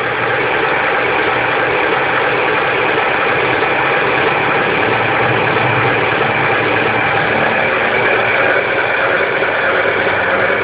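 Steady diesel-like engine idling sound from a toy Caterpillar D10N bulldozer, running evenly without revving.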